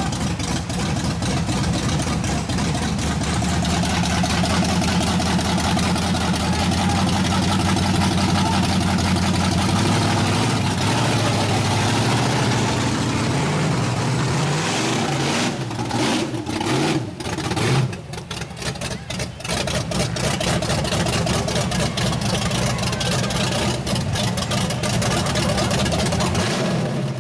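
Big lifted Chevy mud truck's engine running loudly at idle, a steady deep rumble. About halfway through it rises as if revved, then for a few seconds the sound cuts in and out before it settles back to a steady idle.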